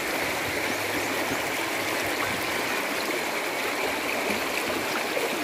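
Shallow river rapids rushing over rocks in a steady, unbroken wash of water noise.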